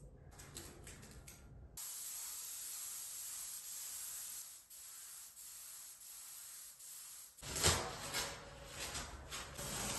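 Paint being sprayed onto a wall: a steady hiss that runs for several seconds with a few brief breaks, then stops and gives way to rubbing and rustling handling noises with a sharp knock.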